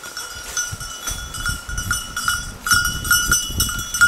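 Bell on a pointer's collar ringing in quick, irregular jingles as the dog moves, over rustling in dry leaf litter. The bell sounding without a break means the dog is still moving, not standing on point.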